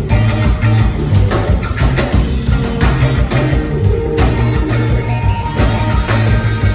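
Live band playing rock music, with a heavy bass line and a steady beat.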